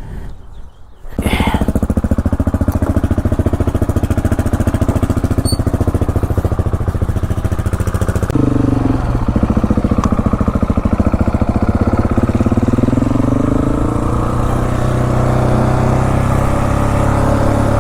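Motorcycle engine starts about a second in and runs steadily; its pitch then rises gradually over the last few seconds.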